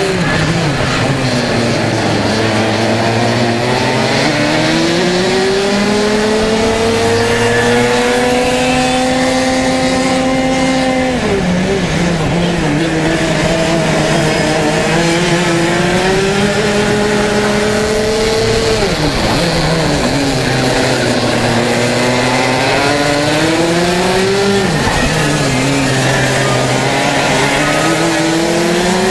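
Racing kart engine heard close up from on board, its pitch climbing steadily along each straight and dropping sharply as the driver lifts off for a corner, three times over.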